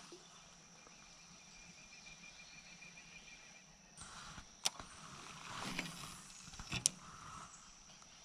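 Quiet outdoor ambience with a steady high insect drone, broken by two sharp clicks about four and a half and seven seconds in.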